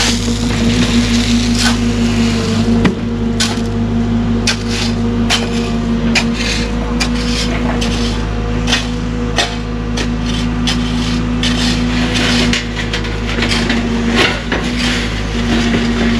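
Cat excavator running steadily under digging load, its engine and hydraulics giving a constant hum. Frequent sharp, irregular clicks and knocks come from the bucket scraping and breaking through the ground.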